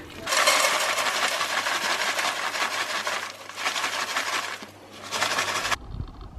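Dry rolled oats poured from a carton into an empty non-stick saucepan: a steady hiss of flakes landing in the pan, easing off briefly twice and stopping abruptly near the end.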